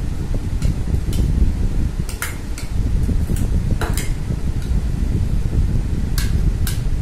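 A spoon and a small bowl clinking against a bowl of chopped vegetables as ingredients are tipped in and mixed: about a dozen sharp, separate clinks at uneven intervals. Under them runs a steady low rumble.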